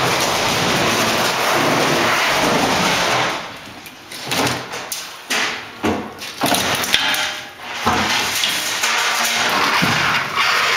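Metal equipment being moved on a hand truck across a concrete floor. A steady rumbling clatter lasts about three seconds, then comes a run of separate knocks and bangs as the load rattles and the wheels roll.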